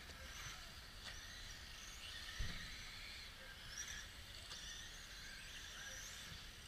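Radio-controlled model buggies racing, several electric motors whining at once, each pitch rising and falling as they speed up and slow down. A single sharp knock about two and a half seconds in.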